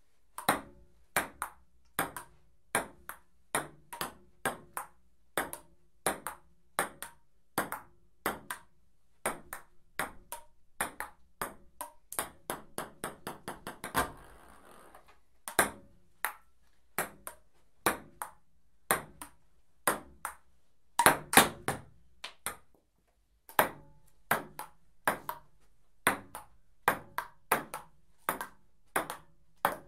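Table tennis rally: the celluloid ball clicking off paddles and table in a steady back-and-forth, about two hits a second, with a few louder, quicker hits a little past two-thirds through.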